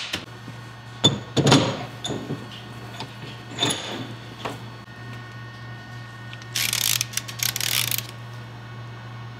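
Metal-on-metal knocks and clicks as a differential carrier and ring gear are handled in a bench vise and tools are set on them. Near the end comes a short burst of rapid rattly clicking, and a steady low hum runs underneath.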